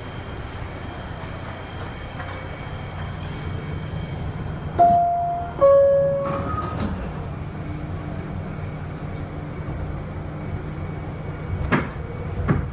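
Steady low hum of a stopped R68A subway car, then its two-tone falling door chime about five seconds in, signalling that the doors are about to close. A sharp knock comes near the end.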